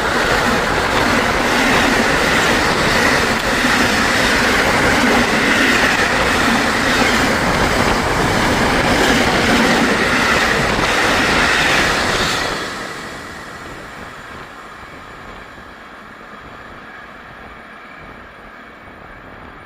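Container freight train hauled by an E.494 electric locomotive passing at speed: steady wheel and rail noise with a rhythmic clatter over the rail joints. About twelve seconds in the last wagon goes by and the sound drops to a fading rumble.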